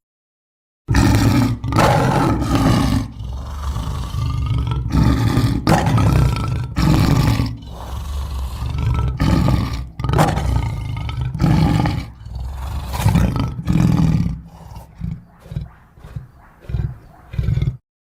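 Tyrannosaurus rex roar sound effect: a long run of deep roars and growls, one after another. The last few seconds break into shorter bursts before it stops.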